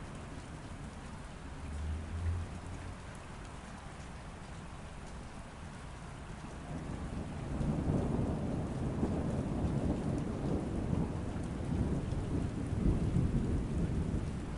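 Steady rain falling, with a brief low thunder rumble about two seconds in, then a longer rolling thunder rumble that builds about halfway through and eases off near the end.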